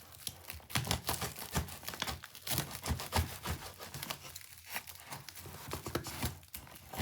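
Packing material being handled and pulled apart: irregular crinkling and tearing crackles.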